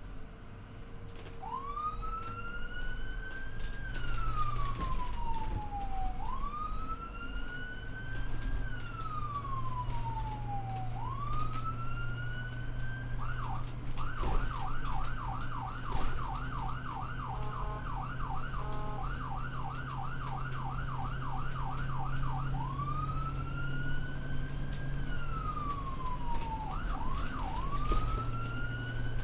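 Ambulance siren sounding. It begins with slow wail cycles, each rising quickly and falling slowly over four or five seconds. About halfway it switches to a rapid yelp of about three sweeps a second, then goes back to the slow wail with a brief yelp near the end. A steady low hum runs underneath.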